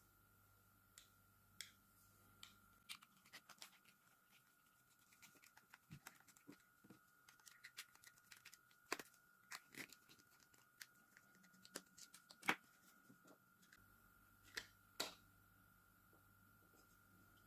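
Scattered small clicks and taps of a hair clipper's parts being handled and taken apart, irregular and a few a second at their busiest, with the sharpest clicks about twelve and fifteen seconds in.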